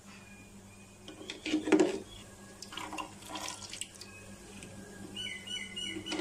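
A metal spoon stirs and scrapes through thin red sauce in a metal pot, with loud sloshes and clinks about a second and a half in and again around three seconds in. A bird whistles in the background, and near the end it breaks into a string of quick repeated notes.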